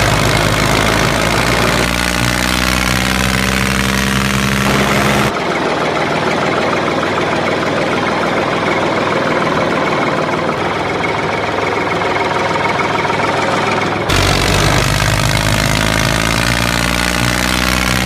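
Tractor engine running steadily. About five seconds in it switches abruptly to a rougher, noisier running sound, and about fourteen seconds in it switches back just as abruptly, as if separate engine recordings were spliced together.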